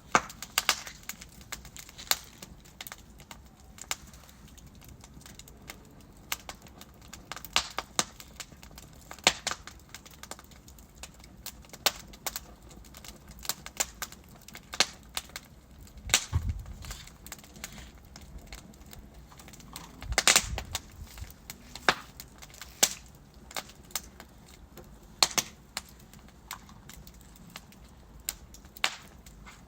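Wood logs burning in a fireplace, crackling with irregular sharp pops and snaps over a low hiss. A few pops are much louder, the strongest with a deeper thud about 16 and 20 seconds in.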